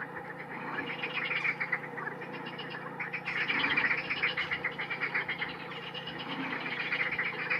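Many birds calling at once in a dense, continuous chatter of rapid short notes that swells and fades in waves, over a steady low hum.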